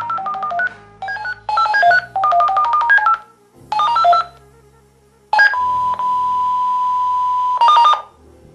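Tunstall Lifeline home unit sounding its electronic call tones while it raises an alarm call to the monitoring centre after a smoke detector test. Short runs of rapid beeps step between a few pitches, and about halfway through a steady tone holds for a couple of seconds.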